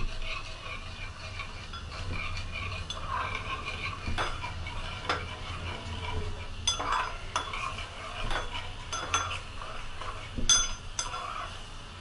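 A spoon stirring lemon juice and sugar in a small pan as it heats, scraping round the pan and clinking against its side every second or so, more often in the second half.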